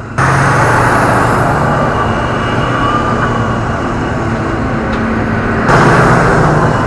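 Caterpillar wheel tractor-scrapers driving past close by, their big diesel engines working hard with dirt and tyre noise underneath. The sound changes suddenly just after the start and again near the end, where clips are cut together.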